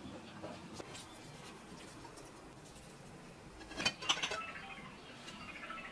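Knife and chopsticks clicking and scraping on a ceramic plate, with a short cluster of sharp clicks about four seconds in, over quiet room tone.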